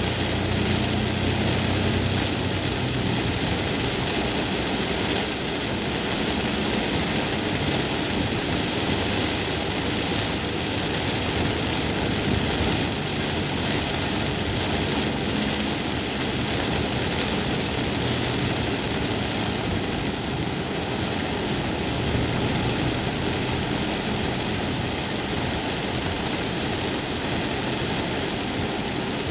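Heavy rain drumming steadily on a car's roof and windshield, heard from inside the cabin, with the car's engine humming low beneath it at times.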